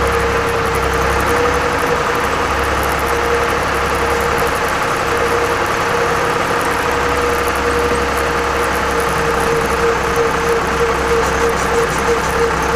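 Torpedo TD 55 tractor's air-cooled diesel engine running at a steady speed as the tractor drives through wet snow, with a steady whine held over the engine note.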